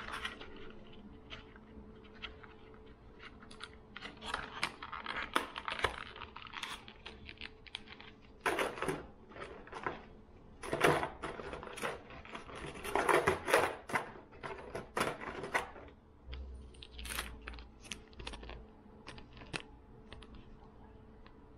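Fishing lures and their plastic packaging being handled: scattered clicks, taps and crinkling in several clusters, loudest in the middle.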